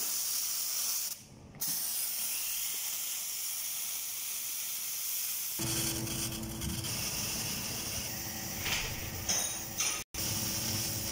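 Sanremo Café Racer espresso machine's steam wand venting with a strong steady hiss, which breaks off for a moment about a second in. After about five and a half seconds the hiss gives way to the machine's lower running hum with a steady tone.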